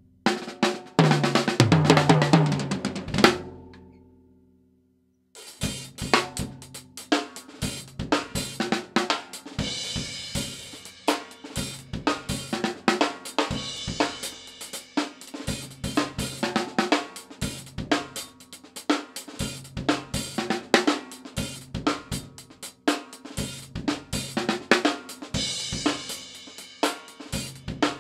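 Drum kit played with a small Pork Pie Little Squealer popcorn snare. A dense fill about a second in rings out and stops around four seconds, then after a short gap a steady groove of snare, cymbals and bass drum runs on.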